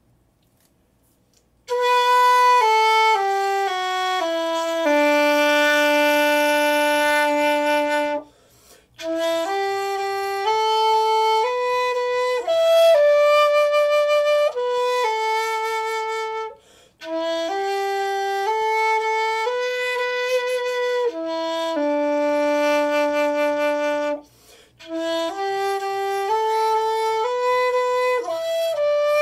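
G-key xiao with a Tang-style notch, the Chinese end-blown bamboo flute, playing a slow melody of stepwise, mostly descending notes with long held tones, starting a couple of seconds in and breaking for breaths three times.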